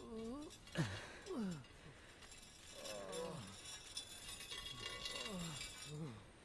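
Faint human voice sounds without clear words, a few of them sliding steeply down in pitch.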